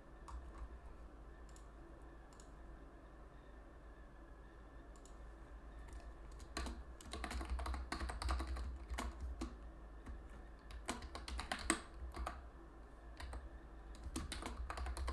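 Typing on a computer keyboard: a few scattered clicks at first, then quick runs of keystrokes from about six seconds in, over a low steady hum.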